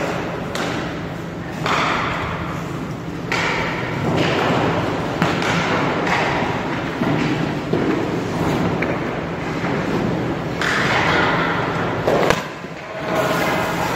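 Goalie skate blades scraping on rink ice and leg pads thudding down onto it, in several separate strokes, over a steady low hum.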